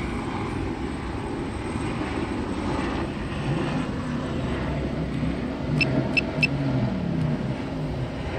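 Steady outdoor rumble of street traffic, with faint voices rising and falling in the middle and three short, high electronic beeps in quick succession about six seconds in.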